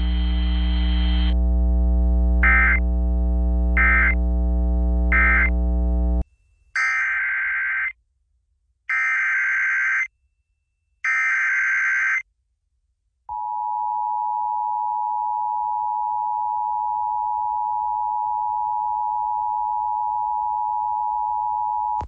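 Emergency Alert System audio from a broadcast radio feed. First a heavy mains hum carries three short data beeps (the end-of-message bursts), and it cuts off about 6 seconds in. Then come three one-second bursts of screeching digital SAME header data, and from about 13 seconds in a steady two-tone EAS attention signal.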